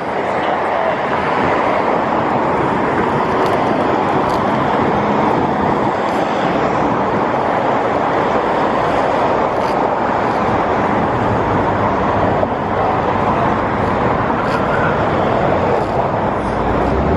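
Steady road-vehicle noise, an even rushing sound with no single passing event standing out.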